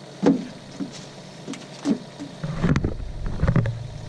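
Thumps and knocks of handling in a boat, the loudest about a quarter second in, with a denser run of knocks and a low rumble from about halfway.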